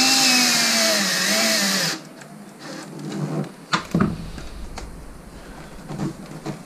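Cordless drill-driver driving a screw into the shower tray's corner flange. Its motor whine wavers and drops a little in pitch, then cuts off about two seconds in. A few light clicks and knocks follow as the tray edge is handled.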